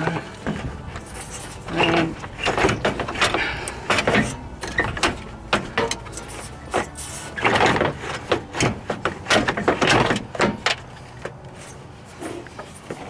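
A radiator being worked down into an engine bay by hand: irregular knocks, scrapes and rattles as it is jostled to seat its bottom pivots in their rubber mounts, dying down near the end.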